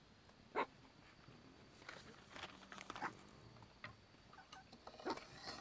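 Faint handling sounds of an incense stick and its small rattan holder on a wooden table: a scatter of light taps and clicks, the sharpest about half a second in, with more around the middle and near the end.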